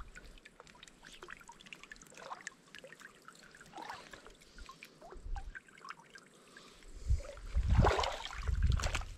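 River water trickling and running, with scattered small splashes and ticks; louder water sloshing comes in the last couple of seconds.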